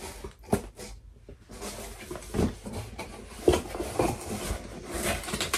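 Hands rummaging through a cardboard box of yarn and kits: rustling of packaging and contents with a few soft knocks.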